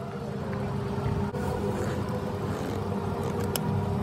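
Steady low mechanical hum in the background, with a sharp click about a second in and a louder click near the end as a pick tool works the front cover off an idler pulley.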